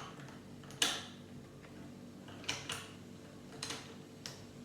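Plastic Lego pieces clicking and tapping as they are handled and pressed onto a build: about six short sharp clicks, the loudest about a second in.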